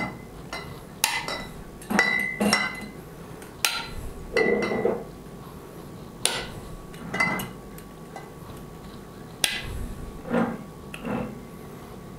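Swing-top (flip-top) stoppers on 0.5 l glass beer bottles being snapped shut one after another: a series of about ten sharp clicks with a short glassy ring, unevenly spaced.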